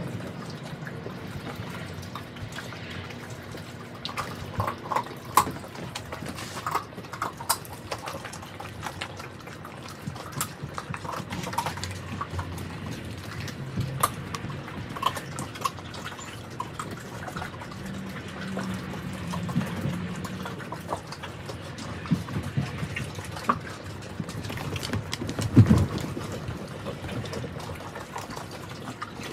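Several mastiffs eating raw turkey: wet chewing and slurping with scattered short crunches as they bite through the bones. A single low thud stands out near the end.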